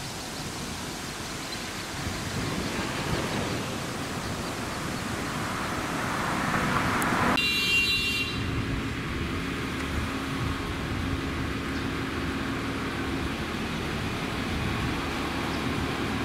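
Steady outdoor rumble and hiss with no clear single source. About seven seconds in, a click comes and the sound changes abruptly: the high hiss drops away and a low steady hum sets in for a few seconds.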